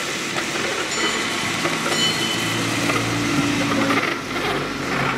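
Street traffic on a steep city street: a steady wash of road noise with a car engine running as vehicles go by, plus a few faint high squeaks.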